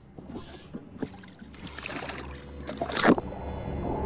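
A person slipping off the side of a sailboat into the sea: water sloshing, then a loud splash about three seconds in. After the splash the sound goes muffled as the microphone goes under water.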